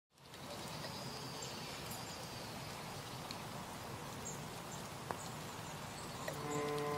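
Steady outdoor ambience fading in at the start, with faint short high bird chirps and one small click. Near the end a low, sustained bowed-string note of music comes in over it.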